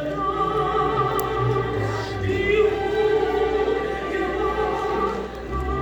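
Classical-style singing by a choir, holding sustained notes with a wide vibrato.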